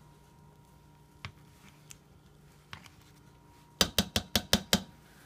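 A kitchen utensil tapping against the inside of a slow cooker's insert as butter is worked into the pot: a few faint single clicks, then a quick run of about seven sharp taps about four seconds in.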